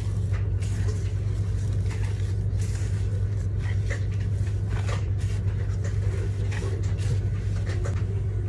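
A steady low hum throughout, with soft, irregular squishing and slapping of shaggy flour-and-water pizza dough being mixed by hand in a glass bowl.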